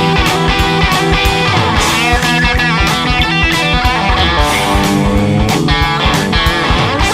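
Gibson Firebird electric guitar played through a miked amp with overdrive, a rock riff with bent notes.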